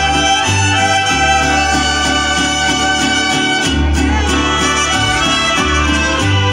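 Live mariachi band playing an instrumental passage: held melody notes over a steady strummed rhythm and deep bass notes that change about once a second.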